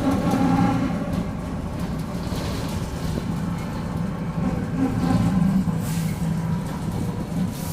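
Mercedes-Benz OF-1722M city bus under way, heard from inside the cabin: a steady low running sound with a pitched growl from the rear differential, strongest in the first second and rising again about five seconds in. The growl is the sign of a worn differential.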